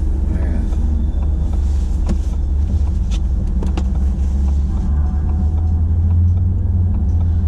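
Low, steady rumble inside a car cabin, with a few faint clicks and taps.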